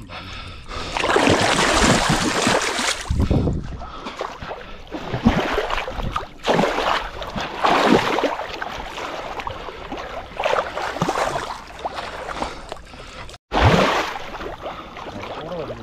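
Water sloshing and splashing in irregular surges as people wade through shallow water and grope along the bottom by hand for snakehead fish.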